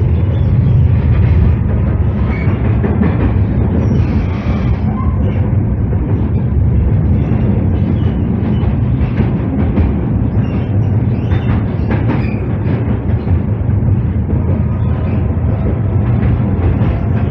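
Tatra KT3UA tram running at speed, heard from inside the passenger car: a steady low rumble of wheels on rail and running gear, with a few short higher-pitched squeaks and scattered clicks from the track.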